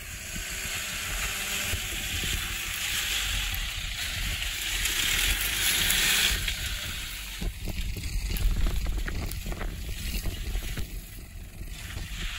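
Toyota Land Cruiser KDJ120's 3.0-litre four-cylinder turbodiesel working under load as the 4x4 crawls up a steep sandy slope, with heavy wind noise on the microphone. A hissing rush builds to about six seconds in, then gives way to crackling wind buffets over the engine's low rumble.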